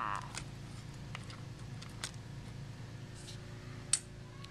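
Faint handling noise of toy dolls being moved: a few light clicks and taps over a low hum, the sharpest about four seconds in.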